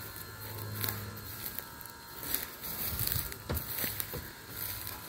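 Footsteps crunching on trackside ballast and dry grass, with scattered crackles and a few heavier steps about three seconds in.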